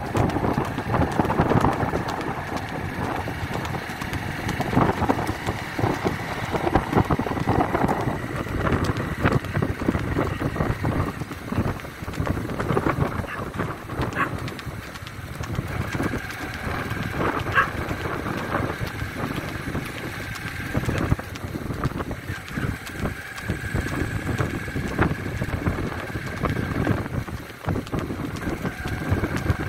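Wind buffeting the microphone of a moving vehicle over the steady sound of its motor, with a galloping horse's hooves clattering on the asphalt and growing fainter as the horse drops behind.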